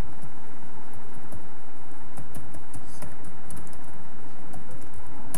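Computer keyboard being typed on: irregular key clicks over a steady background hiss.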